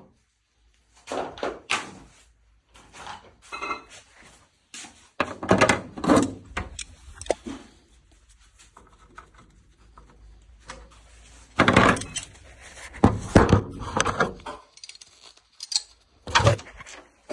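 A series of irregular thunks and clattering knocks, hard objects being handled and set down, with the loudest bunches about a third of the way in and again past the middle.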